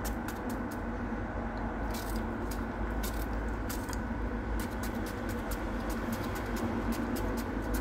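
Cucumber being cut into pieces in the hand with a knife: a quick, irregular run of short crisp clicks as the blade goes through, over a steady low hum.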